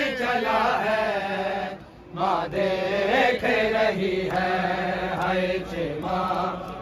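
Men's voices chanting an Urdu noha, a Muharram lament for Imam Husain, in long held melodic phrases with a short break about two seconds in.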